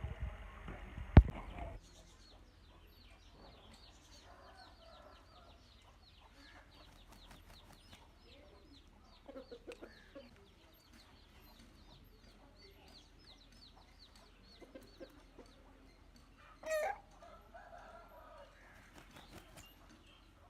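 Aseel chickens clucking softly now and then, with one short, loud wavering call near the end, over a faint run of rapid ticking. A single sharp knock sounds about a second in.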